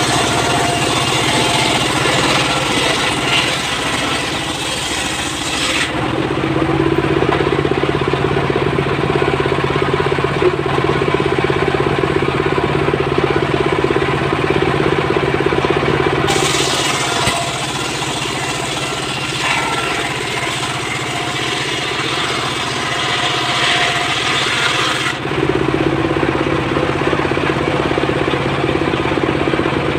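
Single-cylinder stationary diesel engine running steadily, driving a large circular saw on a homemade sawbench. The blade cuts through teak twice, for about six seconds at the outset and again for about nine seconds from about sixteen seconds in, its loud hissing cut rising over the engine.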